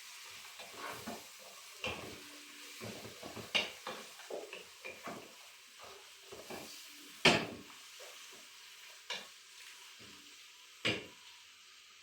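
A spoon stirring food in a cooking pot, with irregular scrapes and knocks against the pot, over a faint sizzle of frying. The sharpest knocks come about seven and eleven seconds in.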